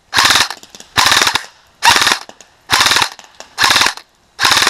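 Custom Magpul M4 airsoft electric gun firing short full-auto bursts, six in a row, each a rapid rattle of shots. The gun has no MOSFET and so no active braking, which the owner says gives it a lot of motor overspin on full auto.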